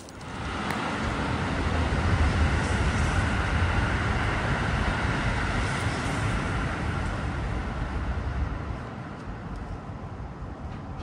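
A road vehicle going by: engine and tyre noise swells over about two seconds, holds, and eases off near the end.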